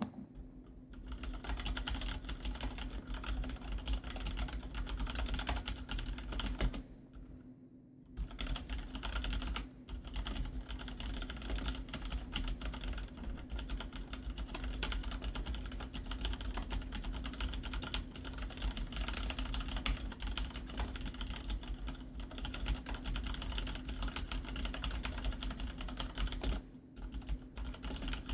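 Typing on a Filco Majestouch-2 Ninja mechanical keyboard with Cherry MX Red linear switches: a fast, continuous run of keystrokes, with a pause of about a second around seven seconds in.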